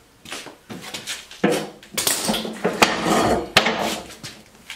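Aluminium frame of a PowerMate stair-climbing hand truck clattering and knocking as it is lifted and shifted by hand, with a dense run of metal clanks about halfway through and two sharp knocks near the end.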